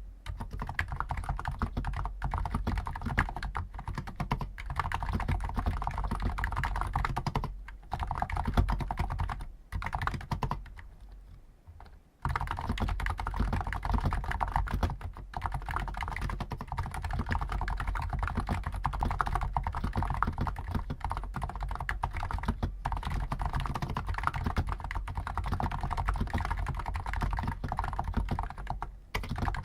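Hansung GTune CHL5 XRGB stock electro-capacitive keyboard with 50 g switches, typed on quickly and continuously, a dense run of key clicks. The typing stops for about two seconds a little before the middle, then resumes.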